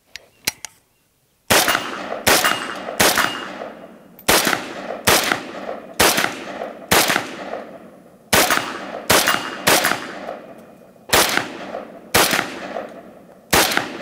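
Century Arms RAS47 AK-pattern rifle in 7.62x39mm fired semi-automatically, about sixteen shots at an uneven pace of roughly one a second or a little faster, each trailing off in echo. A couple of faint clicks come before the first shot, which lands about a second and a half in.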